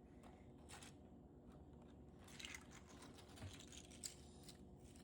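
Near silence, with a few faint, short clicks and rustles of handling.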